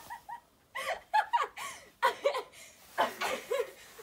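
Girls laughing and giggling in a string of short bursts.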